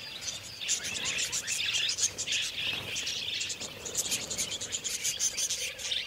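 A flock of cockatiels chirping and chattering together: a dense, steady run of many short, high calls.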